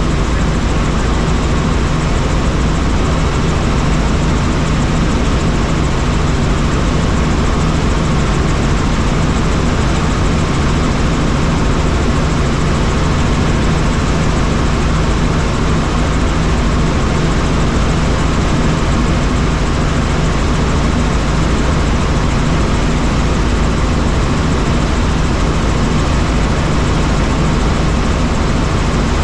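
Helicopter in flight, its engine and rotor running with a loud, steady noise that holds unchanged throughout.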